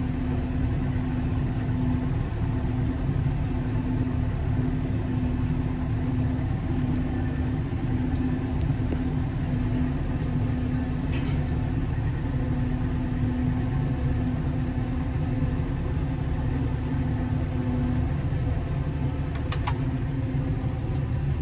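Engine idling steadily: a low rumble with a hum that wavers slightly in level, and a few faint clicks.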